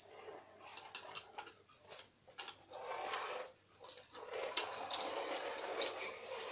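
Long strips of joined Lego bricks scraping and sliding across a wooden floor, with several sharp clicks and taps as they are moved and set down.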